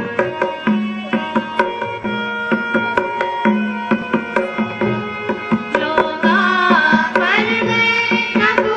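Indian devotional music: tabla playing a steady rhythm under held melodic notes, with a voice singing in, its pitch wavering, from about six seconds in.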